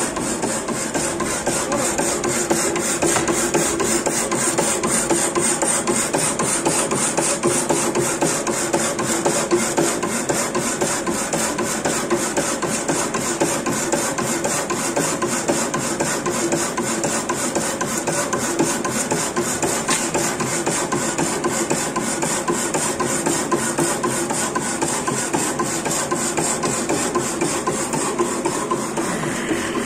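Power hacksaw cutting metal: the blade runs in steady, rhythmic rasping strokes over the hum of the machine.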